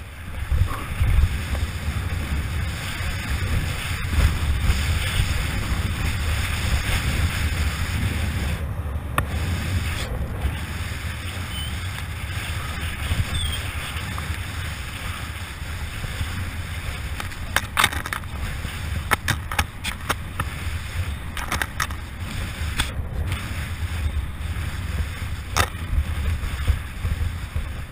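Mountain bike descending a dirt downhill trail at speed: steady wind rumble on the microphone over tyre noise on the dirt. A run of sharp clacks and rattles comes in the second half.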